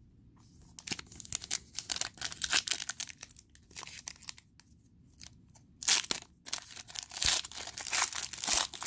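Red foil wrapper of a trading card pack torn open by hand: irregular crinkling and tearing, with a short lull about halfway, then louder tearing near the end.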